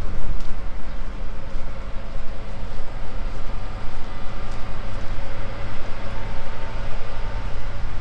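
Steady low mechanical rumble with a constant hum running underneath, from engines and machinery.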